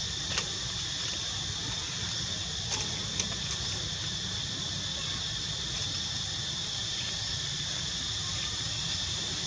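Steady high-pitched buzzing of an insect chorus, unbroken, over a low rumble, with a few faint clicks in the first few seconds.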